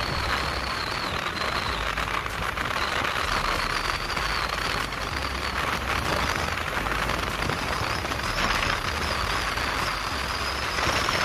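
Steady road and wind noise of a vehicle driving along a paved road, heard from the moving vehicle, with a thin high whine that rises slowly in pitch.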